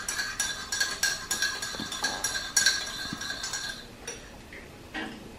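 Metal teaspoon stirring a drink in a ceramic mug, clinking against the sides in a quick, ringing run of about three or four strikes a second that stops about four seconds in, followed by a couple of light taps.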